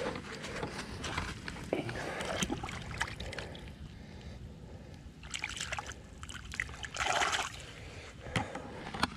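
Water splashing and sloshing at the pond's edge as a caught bass is let back into the water, with handling noise and a short louder burst about seven seconds in.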